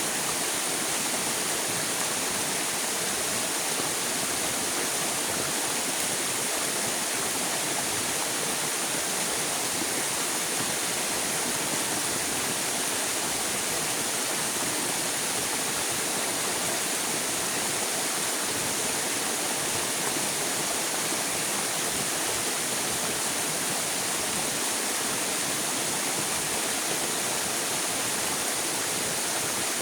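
River water flowing steadily: an even, unbroken rush of moving water.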